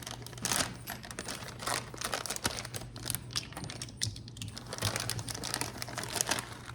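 Dense, irregular clicking and rustling of kitchen handling while grated Parmesan cheese is measured out by the spoonful, over a steady low hum.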